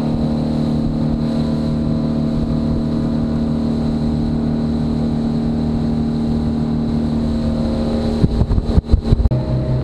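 Motorboat engine running steadily at speed, a drone over the rush of the hull through the water. About eight seconds in, a second of knocks and dropouts breaks it, and then the drone goes on at a slightly lower pitch.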